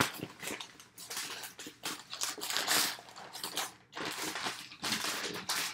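Paper and packaging rustling and crinkling in irregular bursts as folded clothes are lifted out of a shipping box.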